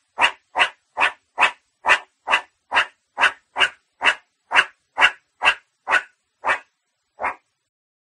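Meerkat calling in a quick run of short, sharp barks, about two a second, slowing slightly near the end.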